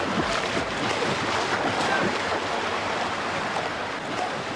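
Pool water splashing and churning.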